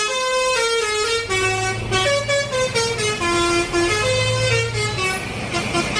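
A simple electronic melody of steady, horn-like tones, stepping from note to note every fraction of a second over a low hum.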